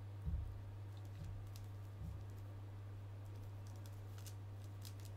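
Faint clicks and three soft low knocks as a Treebeard action figure is handled in the hands, with more clicks near the end, over a steady low electrical hum.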